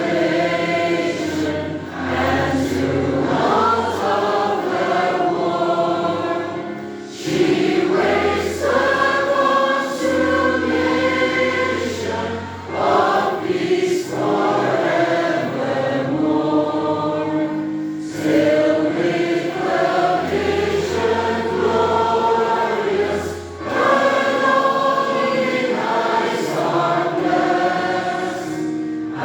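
A group of voices singing a hymn together, in lines of about five to six seconds with short breaks between them.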